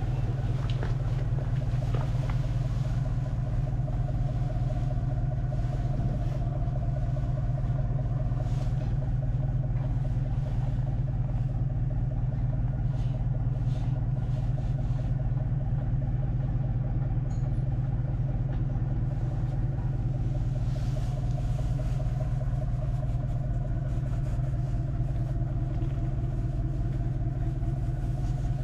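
An engine idling steadily: a constant low drone with a fine, rapid pulse and no change in speed.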